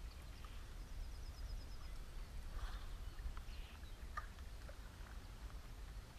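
Small birds calling outdoors: a quick trill of high chirps about a second in, then scattered short calls, over a steady low rumble.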